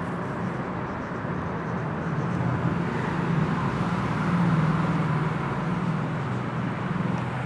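A steady low motor hum with a noisy rush over it, growing a little louder about halfway through and easing off near the end.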